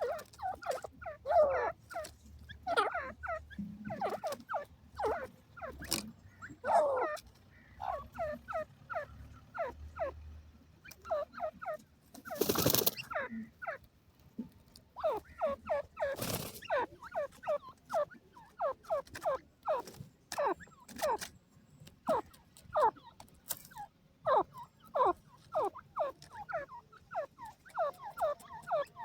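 Desi teetar (grey francolin) calling in rapid runs of short, falling clucks, with two brief noisy rustles, about twelve and sixteen seconds in.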